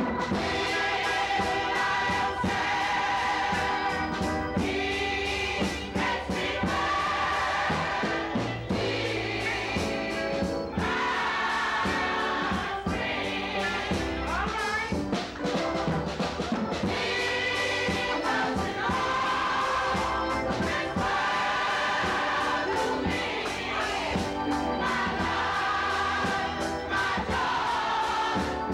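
Gospel choir singing together, many voices at once.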